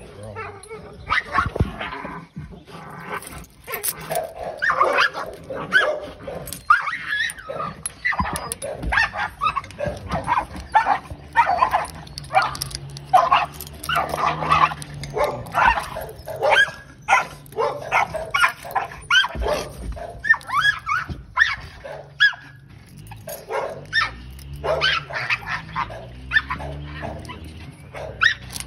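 Pit bull-type kennel dogs barking over and over, about one or two barks a second.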